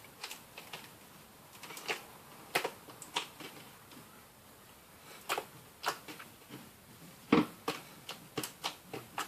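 Fluffy shaving-foam slime being squished and poked by hand, giving short, sharp pops and clicks at irregular intervals, the loudest about seven seconds in.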